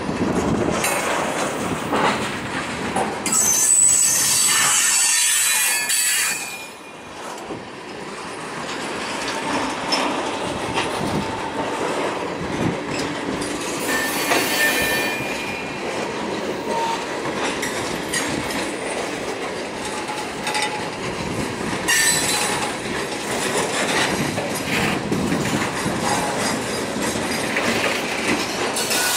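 Freight cars, mostly tank cars, rolling slowly past on steel wheels as the train is shoved from behind, with clacking over the rail joints. High-pitched wheel squeal rises several times, loudest about four to six seconds in.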